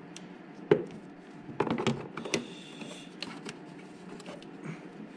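Scattered plastic clicks and knocks from handling the air filter element and airbox seal while fitting them into a 2008 Kawasaki Ninja ZX-10R's airbox. A sharp knock under a second in is the loudest, with a quick cluster of clicks about two seconds in.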